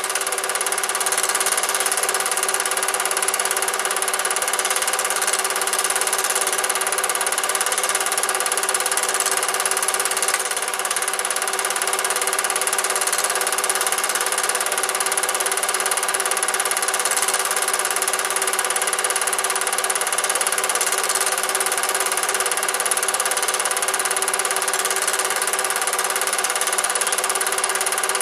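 Cine film projector running steadily, with a constant mechanical hum and a thin high whine.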